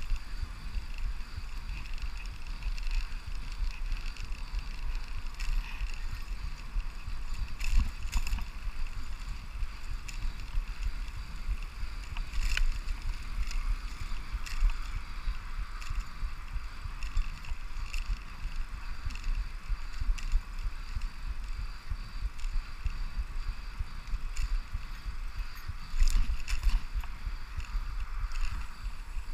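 Brompton folding bicycle being ridden: a steady rumble of wind on the microphone over tyre and road noise, with a few sharp clicks and rattles.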